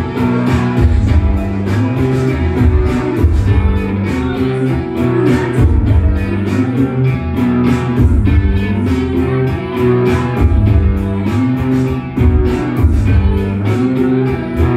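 Indie rock band playing live: electric guitars and bass guitar over a steady drum beat.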